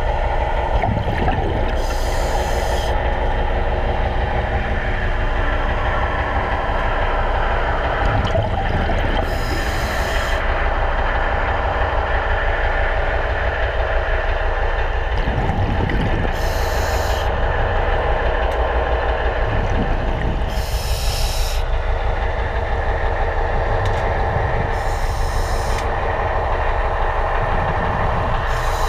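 Underwater, a steady machinery drone with a constant low hum runs throughout. Roughly every four to seven seconds a short burst of hissing bubbles from a diver's scuba regulator exhaust cuts through it, about six times.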